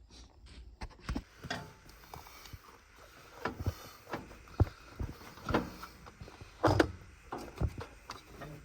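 A string of irregular knocks and clunks, the loudest two about four and a half and seven seconds in, with rustling between them.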